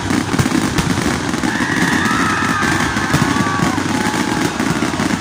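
Aerial fireworks bursting, with a dense, continuous crackling and popping. Partway through, several long, high whistling tones sound over the crackle.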